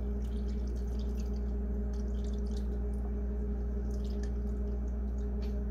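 Macadamia nut milk pouring from a carton into a bowl in a thin stream, a faint splashing trickle, over a steady low hum.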